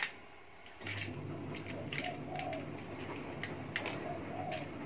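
A dove cooing in the background, short soft phrases repeating every second or two. Under it runs a low steady hum that starts about a second in, with a few light clicks.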